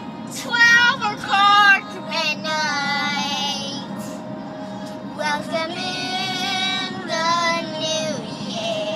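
A young girl singing along with a recorded holiday pop song sung by a woman with a wavering, vibrato-laden voice.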